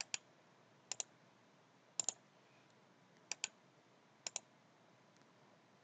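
Clicks of computer input controls as a licence key is copied and pasted: five pairs of short sharp clicks, roughly a second apart, the two clicks in each pair about a tenth of a second apart.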